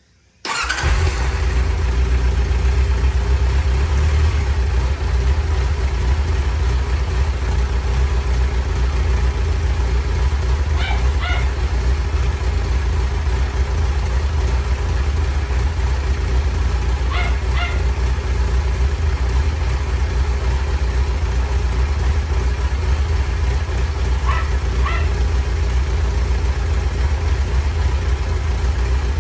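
A Kawasaki Zephyr 1100's air-cooled inline-four engine running at a steady idle, coming in suddenly about half a second in with a deep, even exhaust note.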